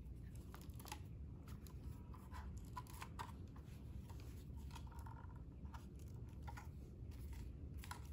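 Light, irregular plastic clicks and rubbing as hands turn a folded DJI Air 2S drone and unfold its arms, over a steady low background hum.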